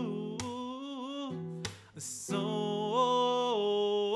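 Man singing a drawn-out vocal line that bends in pitch, without clear words, over a strummed nylon-string classical guitar. The voice breaks off about two seconds in for a quick breath, then resumes.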